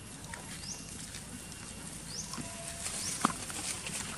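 Light rustling and patter of macaques moving through grass and dry leaf litter. Three short, high rising chirps and one sharp tick a little past three seconds in.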